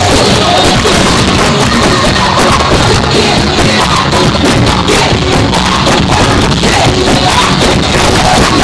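Loud music with singing from a carnival float's sound system, heavily distorted: the microphone is overloaded by the bass from the float speakers.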